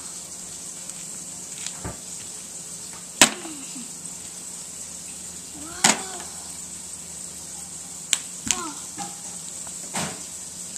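Plastic wrestling action figures knocking against each other and the plastic toy ring: about six sharp knocks spread several seconds apart, the loudest about three seconds in, over a steady hiss.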